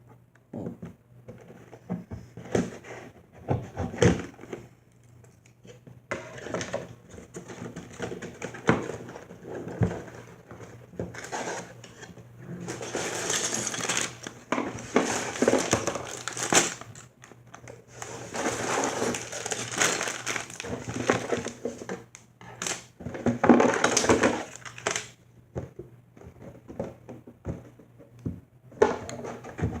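A LEGO set's cardboard box being opened and its contents handled: scattered knocks and clicks, with longer stretches of noisy rustling and tearing around the middle.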